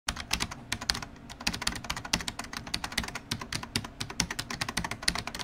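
Keyboard typing: a quick, uneven run of sharp clicks, several a second.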